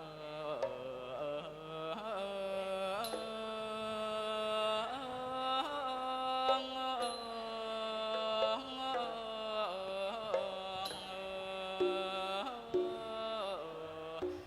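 Thai classical ensemble music: a continuous, sliding melody line that bends between held notes, over a lower sustained note.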